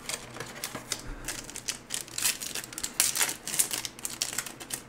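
Trading cards being flipped and slid against one another in the hands: an irregular run of light clicks and flicks, a few a second.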